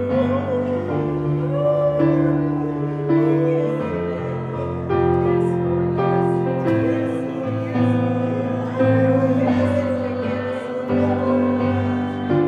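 Worship music: a keyboard holds sustained chords that change every second or so, while a voice sings a wavering melody over them.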